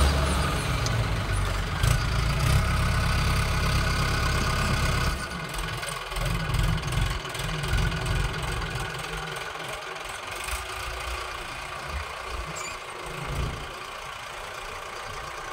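Tractor diesel engine running, loud and steady for about the first five seconds, then quieter and uneven, with irregular low pulses.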